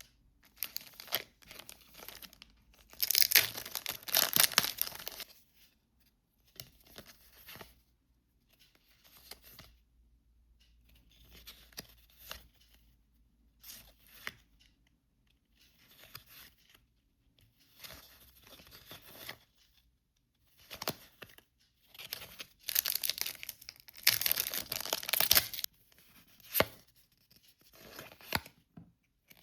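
Packet wrappers being torn open and crinkled by hand in irregular spells of rustling and tearing. The longest, loudest tearing comes a few seconds in and again near the end, with shorter crackles between.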